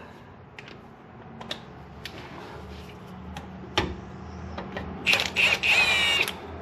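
Hand tools on a rusty skid-plate bolt: scattered metallic clicks and knocks, then a louder burst of rapid ratchet clicking with a scraping squeal about five seconds in as the bolt turns out.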